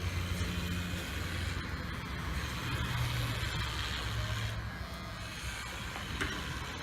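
Cordless rechargeable pet hair clipper running with a steady motor hum, its pitch wavering slightly midway.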